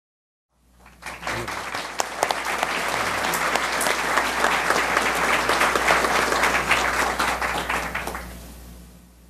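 Audience applause. It starts about half a second in, holds steady, and dies away near the end.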